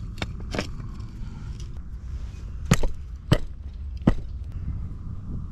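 Flat stones knocked against each other as they are set into place for a fireplace: a few light clacks, then three loud, sharp knocks under a second apart near the middle, over a steady low rumble.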